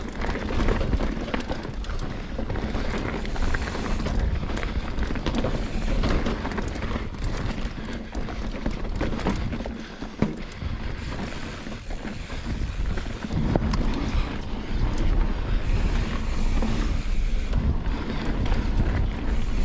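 Wind buffeting the microphone with a rough low rumble, as from a mountain bike rolling over a rocky trail.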